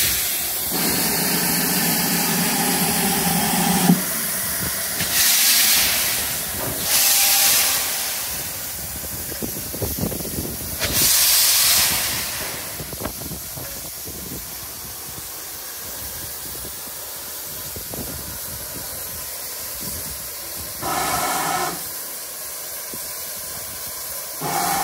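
GWR 5600 Class 0-6-2T steam tank locomotive starting away from a standstill: a steady whistle for about three seconds, then loud blasts of hissing steam from the cylinder drain cocks as it moves off, easing to a softer hiss as it draws away. A shorter whistle sounds near the end.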